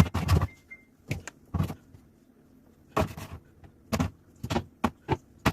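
A series of separate knocks and clicks as hard items are set down and moved about in a clear plastic fridge turntable organizer.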